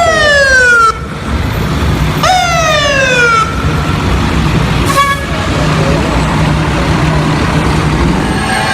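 Fire truck siren sounded in two short blasts, each jumping up and then sliding down in pitch, followed by a brief horn toot about five seconds in, over a steady low engine rumble.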